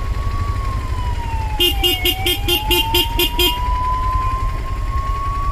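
Ambulance siren wailing, its pitch slowly falling and rising again. About one and a half seconds in, a rapid pulsing beep joins it for about two seconds, about four pulses a second, over a steady low engine rumble.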